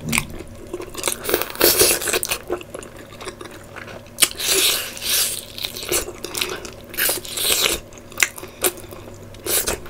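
A person chewing and smacking wet mouthfuls of curry and rice eaten by hand, in a run of short wet clicks, with a longer sucking slurp about four seconds in as sauce is licked from the fingers.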